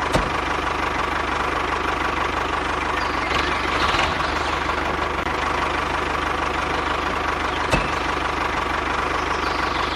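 Engine of a homemade small tractor-type machine idling steadily just after being started. Two brief sharp knocks come through, one at the start and one about eight seconds in.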